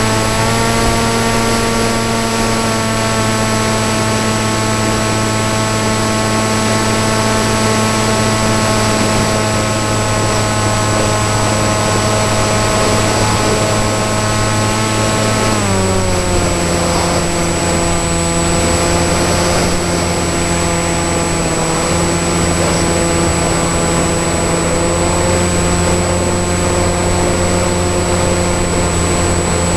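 Brushless electric motor and propeller of a foam RC flying wing running at a steady pitch, sliding down to a lower steady pitch about halfway through as the motor slows. A thin high whine runs alongside.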